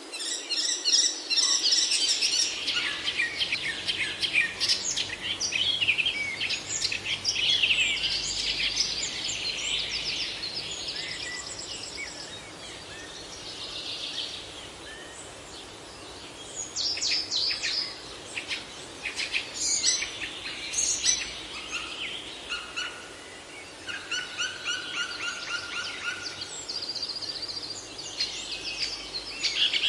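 Several songbirds singing and chirping at once, a busy mix of quick trills and repeated phrases over a faint steady hiss. The singing thins out for a few seconds midway, then picks up again.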